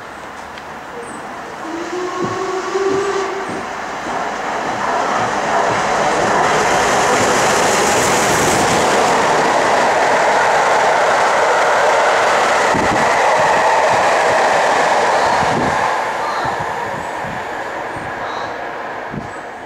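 Steam locomotive hauling a passenger train approaching and passing at speed: its exhaust and the running of the train build to a peak and then fade away, with a few thuds from the wheels. A short whistle sounds about two seconds in.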